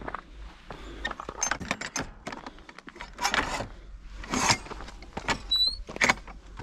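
A wooden field gate's metal latch and fittings clinking and clanking as it is opened, walked through and swung shut, with footsteps on a stony chalk path.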